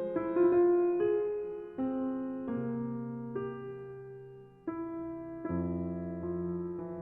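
Background piano music: a slow melody of single held notes over a low accompaniment.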